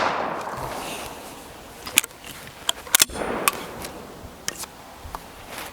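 The echo of a .410 shotgun shot dying away over the first second, then a few sharp clicks and a short rattle of the gun being handled, about two and three seconds in.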